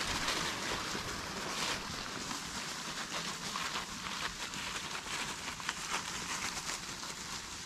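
Footsteps rustling and crackling through dry fallen leaves, a steady run of small crunches.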